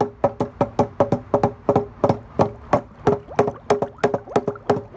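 Two black rubber mallets pounding on folded paper over a wooden picnic table, rapid uneven knocks several a second, each with a short hollow ring from the table boards. The mallets are crushing flowers folded inside the paper so their pigment prints through (hapa zome).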